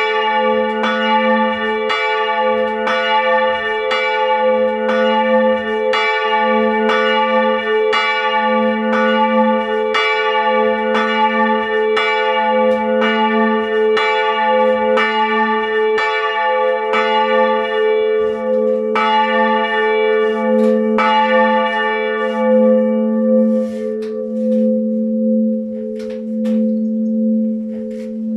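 Two large swinging church bells, about 450 kg and 380 kg, rung together in a steady run of clapper strokes over a constant deep hum. Near the end the strokes thin out and stop as the peal is brought to a close by dropping strokes, and the bells' hum rings on by itself.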